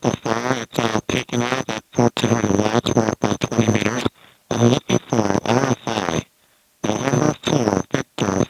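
A voice received over an HF ham radio and played through the station speakers: narrow-band, garbled single-sideband speech in short phrases, with a steady high whine riding on each phrase.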